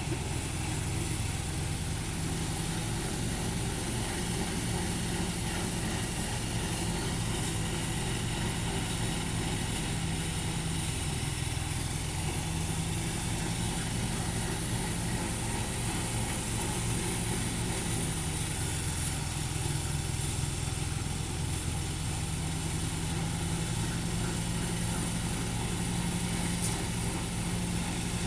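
Engine running steadily at an even speed, with a continuous high hiss over it.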